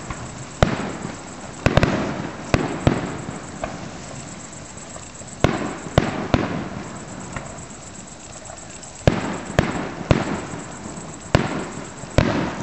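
Aerial fireworks shells bursting, about a dozen sharp bangs at irregular intervals, each followed by a rolling echo.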